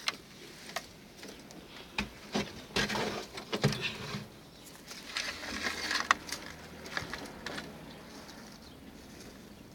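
Scattered rustles and light knocks from handling at a pigeon's nest: straw bedding being disturbed, wooden boards being moved, and the brooding pigeon being touched on its eggs.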